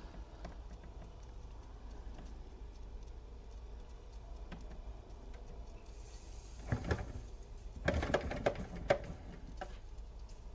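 Doll 387/3 model steam engine running quietly on steam, a faint light mechanical ticking over a steady low hum, slowing because its burner's gas bottle is running low. A few sharp clicks and knocks come in the second half.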